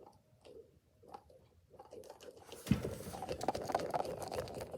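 A squishy stress ball being squeezed and worked in the hand: after a fairly quiet start, a thump about two and a half seconds in, then a dense run of fine crackling squish noises.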